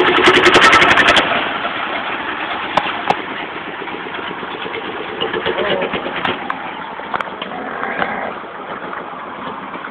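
An engine running steadily, louder for about the first second and then settling somewhat lower, with a few sharp clicks.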